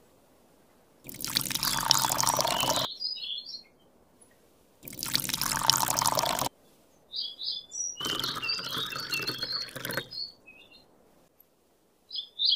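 Water poured from a small steel cup onto sand in three pours of a couple of seconds each: about a second in, around five seconds and around eight seconds. Short bird chirps come between and over the later pours.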